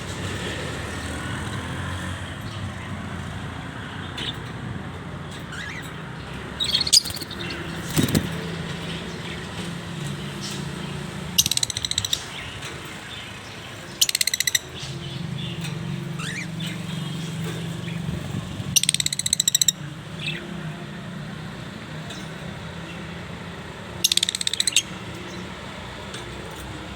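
Fischer's lovebirds giving short bursts of shrill, rapid chirping, about six bursts spaced a few seconds apart, over a steady low rumble.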